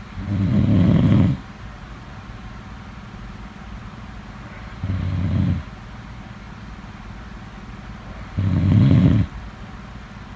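Snoring in slow breaths: three loud snores about four seconds apart, the middle one shorter and quieter.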